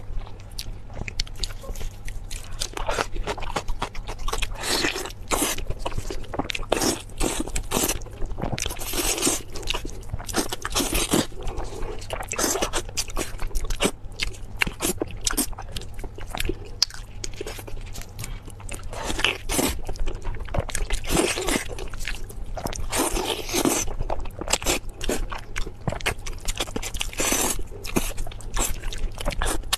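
Close-miked eating of pork tails: wet chewing and biting with irregular smacking clicks as the soft meat is pulled from the bone at the mouth.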